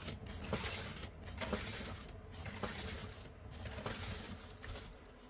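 Plastic sheeting rustling and crinkling under gloved hands as a large board of wet acrylic paint is tilted, in several noisy swells over a low rumble.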